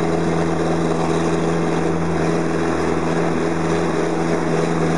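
Engine of a self-propelled fruit harvester running steadily at an even speed as the machine drives along, a constant mechanical drone with no change in pitch.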